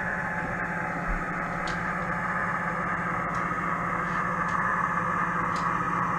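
Model railway train running on the layout: a steady motor hum and wheel-on-rail hiss, with faint light clicks about once a second.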